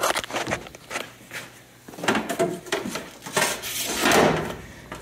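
Handling noise: hard objects knocking, clattering and rubbing, with a few sharp knocks at the start and a longer stretch of scraping and rustling in the second half.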